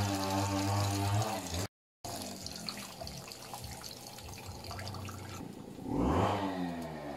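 Rice-wash water pouring from a plastic colander into a pot of leafy greens, splashing. A droning engine sounds over the first second and a half, the sound cuts out for a moment, and the engine returns near the end with its pitch sweeping.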